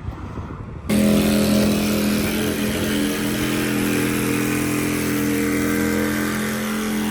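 Twin-turbo Camaro's engine running at a steady speed, starting abruptly about a second in and holding one even pitch.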